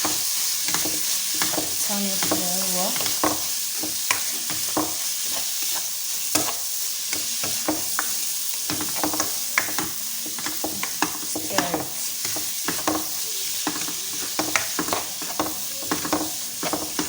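Food sizzling in hot oil in a frying pan while a spoon stirs it, with many sharp scrapes and knocks of the spoon against the pan.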